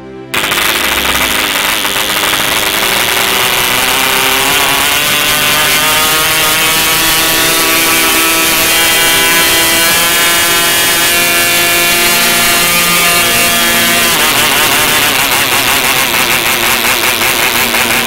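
Small two-stroke model airplane engine screaming at high revs with its propeller spinning. It cuts in abruptly, its pitch climbs over several seconds, then it holds a high, steady note.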